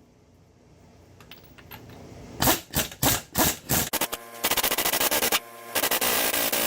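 Air impact wrench hammering on a wheel's lug nuts to break them loose, in two rattling bursts about a second long, after a few clicks and knocks as the socket goes onto the nut.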